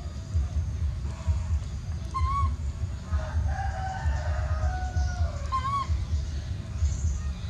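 Animal calls: two short arched cries with a longer, wavering call between them, over a steady low rumble.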